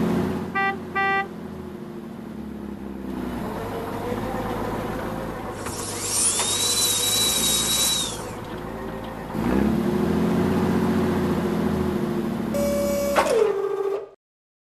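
Dubbed heavy-vehicle engine sound for a toy tracked truck, running and revving up and down, with two short beeps about a second in. In the middle a high whine rises, holds for about two seconds and falls away. Near the end the engine winds down with a falling tone and cuts off.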